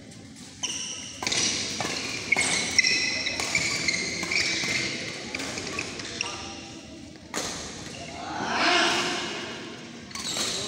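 Badminton play: sharp racket strikes on the shuttlecock and high squeaks of shoes on the court, with players' calls, echoing in a large hall.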